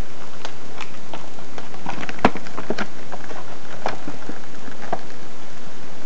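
Plastic retail packaging of a phone case being handled and opened: scattered crinkles and clicks, with one sharp snap a little over two seconds in.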